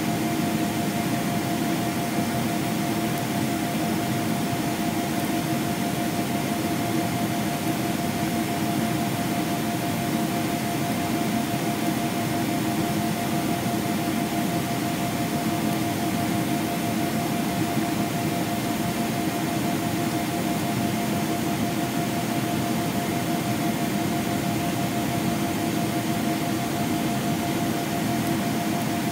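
Steady cabin noise inside a Boeing 777-300ER in flight: an even rush of airflow and engine noise with a constant mid-pitched tone running through it.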